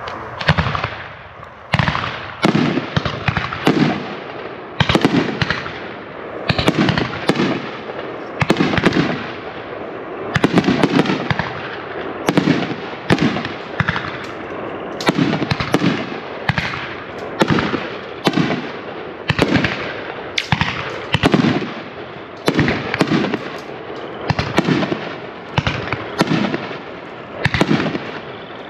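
A 16-shot, 50 mm, 1,000-gram Nishiki Kamuro firework cake firing. Launch thumps and bursting shells follow one another in a steady string, each report trailing off in echo.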